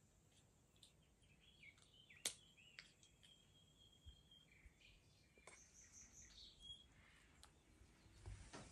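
Faint bird chirps and calls, with a few sharp clicks and soft taps from apricots being split by hand and dropped into a pot.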